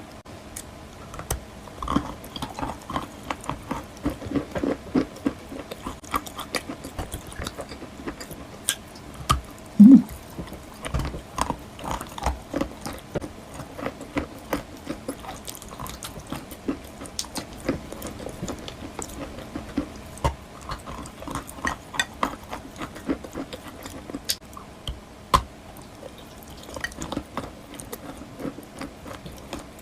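Wet white chalk being bitten and chewed close to the microphone: a steady run of small crackles and soft, moist crunches, with one heavier thump about ten seconds in.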